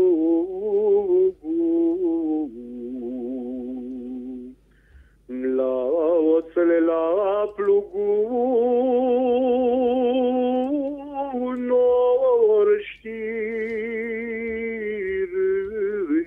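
A man singing a slow traditional Romanian song unaccompanied into a microphone, holding long notes with a wavering vibrato. There is a short breath pause about five seconds in.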